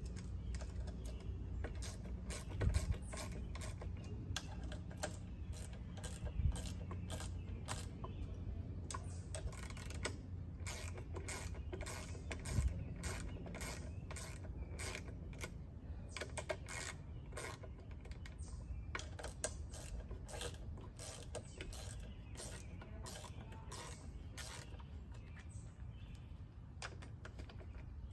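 Many irregular small clicks and rattles from the Hoselink hose reel's wall-mount bracket being fitted and adjusted by hand, over a steady low hum.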